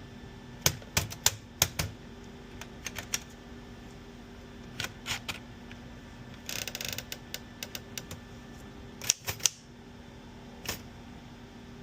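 Remington 5 manual typewriter being typed on: sharp key strikes coming irregularly in small clusters, with a short rasping sound about halfway through.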